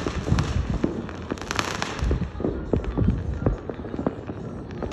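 Fireworks going off in a steady barrage: many sharp bangs at irregular intervals, some low and booming, some with a crackling hiss.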